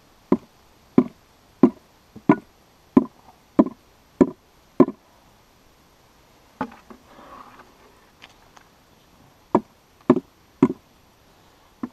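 Upside-down red plastic tub of strawberry pie filling knocked against a log to shake the filling out: eight sharp knocks, about one every two-thirds of a second, then a short rustle, then three more knocks near the end.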